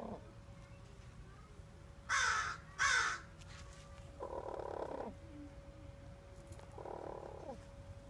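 Crow cawing twice in quick succession about two seconds in, loud harsh calls, followed by two lower, softer calls about four and seven seconds in.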